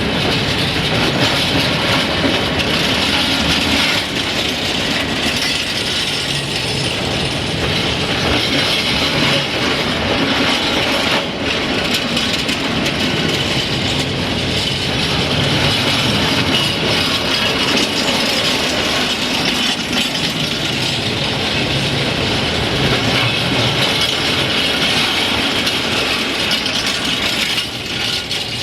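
Train running along the track, its wheels and wagons clattering steadily over the rails.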